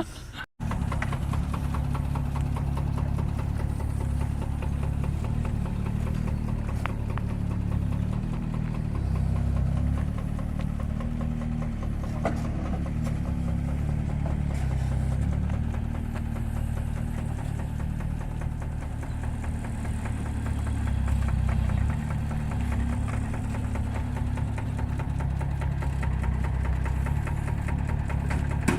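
Small diesel engine of a compact earthmoving machine running steadily. It swells a little in level twice, as if under varying load, and starts after a brief break just at the beginning.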